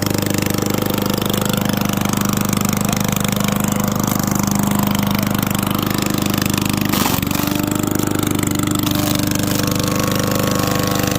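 Single-cylinder lawn mower engine with the muffler removed, straight-piped out of the cylinder, running loud and steady at full throttle. About seven seconds in it briefly stumbles, then carries on at a slightly higher pitch.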